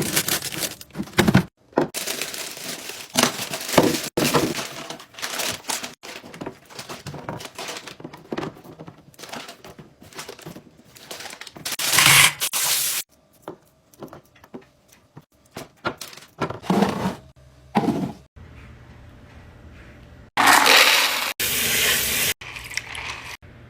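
Fridge being restocked: a busy run of knocks, clacks and rustles as containers, bottles and packaging are handled and set down, broken by several sudden cuts.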